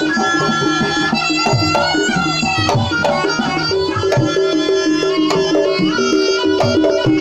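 Javanese jaranan gamelan music: hand drums (kendang) beat a busy rhythm under ringing gong-chime notes, while a reedy wind instrument, the slompret shawm, plays a sustained wailing melody.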